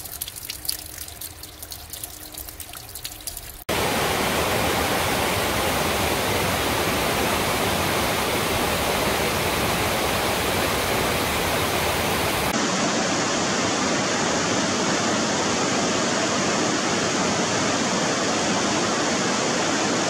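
Water trickling and dripping down a cave's rock wall, then, cut in suddenly about four seconds in, the steady loud rush of a fast mountain stream tumbling over rocks, its tone changing at a second cut about twelve seconds in.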